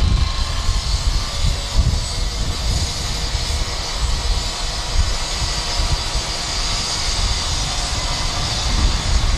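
Small generator-driven water pump running steadily, pumping water out of the flooded culvert into the canal, under an uneven low rumble.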